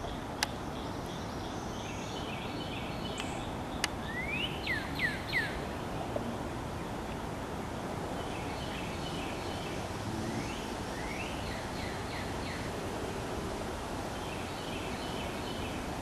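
Wild birds calling over a steady outdoor hiss: sets of quick sweeping chirps about four seconds in and again around eleven seconds, with short runs of faint rapid twittering in between. A sharp click comes just after the start and another about four seconds in.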